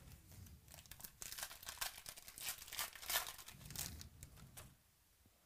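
Foil wrapper of a Prizm football card pack being torn open and crinkled in the hands, a dense crackling that stops near the end.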